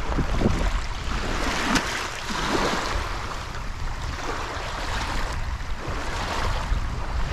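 Gusty wind rumbling on the microphone over a steady rushing wash of lake waves against the bank.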